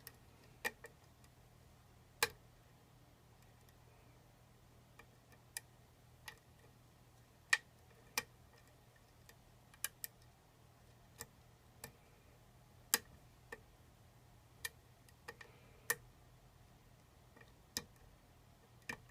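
Lock pick and tension wrench working the pins of a challenge lock: irregular sharp metallic clicks, one every half second to two seconds.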